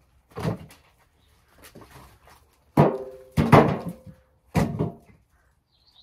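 Pieces of firewood being picked off a log pile and dropped into a wheelbarrow: four sharp wooden knocks, the two loudest near the middle.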